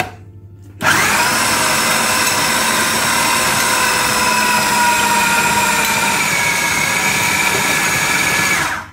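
Electric food processor running steadily, mixing ground mackerel paste for pempek. The motor starts about a second in and stops just before the end.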